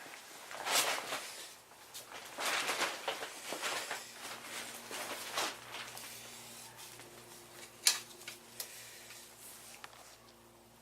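Rustling and handling noises in a small room, in bursts over the first few seconds, then a single sharp click about eight seconds in, over a faint steady hum.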